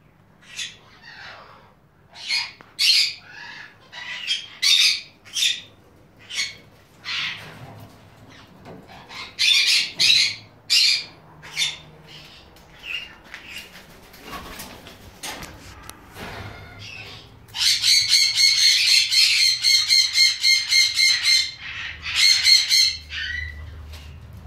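Red-winged parrots (crimson wings) giving repeated short, harsh squawks, then a fast rattling run of calls lasting about five seconds near the end.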